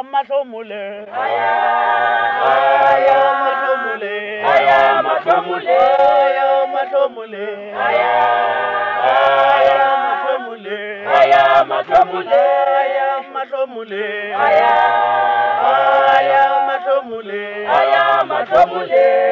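A small mixed choir of men and women singing a cappella in harmony. The song comes in repeated phrases of about three seconds with short breaks between, a low male bass line under the higher voices.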